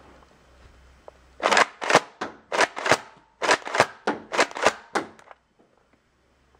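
Nerf N-Strike Elite Rough Cut 2x4 blaster being pump-primed and fired repeatedly: a quick series of sharp plastic clacks and pops in two bursts, with a short pause about three seconds in.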